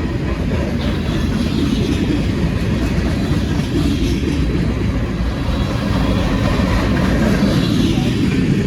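Freight cars of a passing train rolling by, their steel wheels running on the rails with a loud, steady noise.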